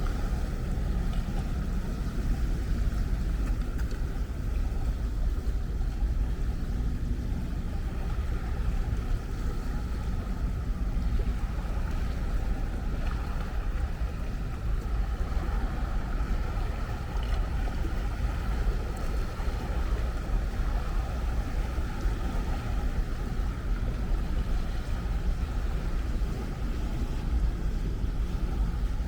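Ocean surf: a steady rush of waves with a heavy low rumble and no single break standing out.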